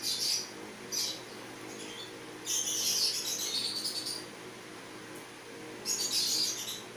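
Plastic clip-on phone lens rubbing and scraping against the phone as it is clipped into place, in short scratchy bursts; the longest comes about two and a half seconds in, another near the end.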